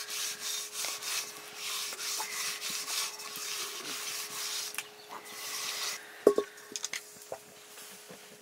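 A hand rubbing and smearing a coating of mud over the outside of an aluminium cooking pot, in repeated rough strokes. About six seconds in the rubbing stops and there is a sharp clunk, followed by a few lighter knocks, as the pot is set down on the hearth.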